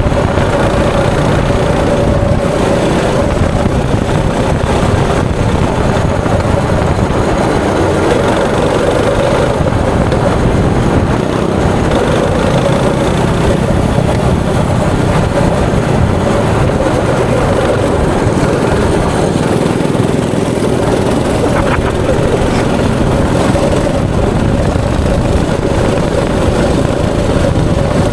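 Go-kart engine running at racing speed, heard from the driver's seat, its pitch dipping and climbing again a few times as the kart slows and accelerates.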